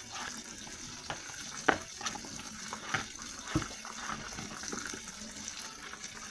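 Kitchen knife cutting through raw potatoes onto a cutting board, a few irregular knocks, over a steady hiss in the background.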